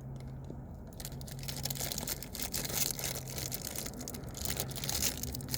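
Crinkly plastic cracker wrapper being crumpled and pulled at while someone struggles to tear the pack open: an irregular crackling that starts about a second in.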